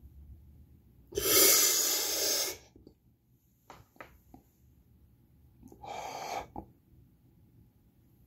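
Two heavy breaths after a set of push-ups: a long, loud one about a second in and a shorter, softer one about six seconds in, with a few faint clicks between.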